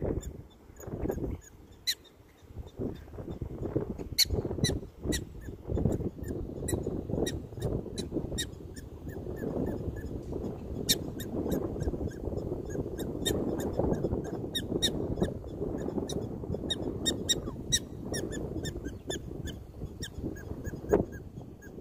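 Prairie dogs giving many short, sharp, high-pitched chirping barks, repeated irregularly across the colony, over a low, uneven rush of noise.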